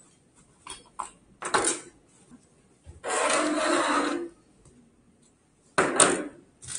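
Handling noise from hands and a screwdriver working on a motorcycle airbag vest's trigger mechanism: a few light clicks, then a scraping rasp lasting a little over a second about three seconds in, and a sharp click near the end.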